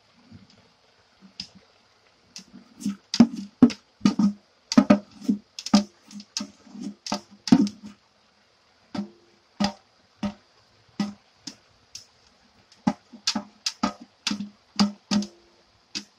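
A cooking pot being knocked and tapped by hand to shake cooked black rice out into a wok of vegetables. The knocks are sharp and irregular, with a dull thud to each. They come in quick runs with short pauses between.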